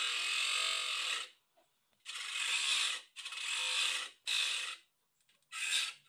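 Homemade grinder, a grinding wheel driven by a 775 DC motor, running in about five short runs of roughly a second each, each starting and stopping suddenly.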